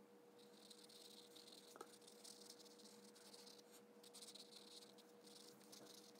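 Faint scratching of a pen tip drawing quick strokes on sketchbook paper, coming and going stroke by stroke, over a steady faint hum. One small tick about two seconds in.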